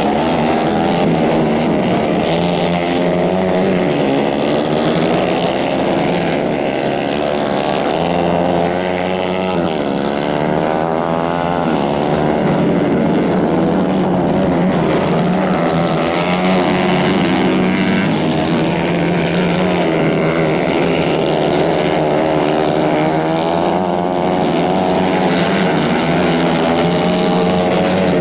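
Several 150 cc dirt-track kart engines racing together, their pitch rising and falling as the karts accelerate and lift off through the corners.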